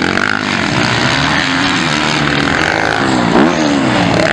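Motocross bike engines racing, their pitch rising and falling as the riders work the throttle, with a sharp rise in pitch a little after three seconds in.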